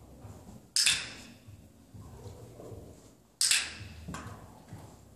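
Two sharp clicks about two and a half seconds apart from a dog-training clicker, marking the springer spaniel's backing up.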